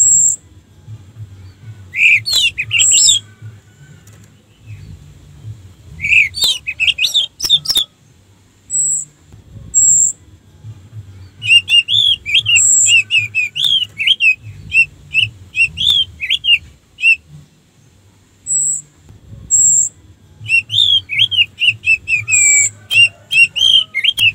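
Orange-headed thrush singing: four bursts of rapid, varied chirping and whistled phrases, the longest lasting several seconds. Between the bursts come pairs of short, thin, very high whistles.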